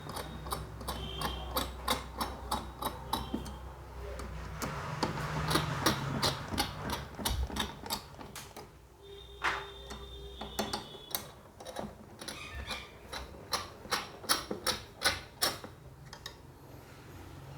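A screwdriver tightening the CPU cooler's mounting screws onto the motherboard a little at a time. It makes many irregular sharp clicks and small knocks, over a low steady hum.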